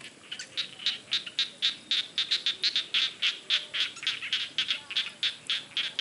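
A chorus of frogs calling in a flooded rice paddy: a fast run of short, high-pitched calls, about five a second, overlapping and rising and falling in loudness.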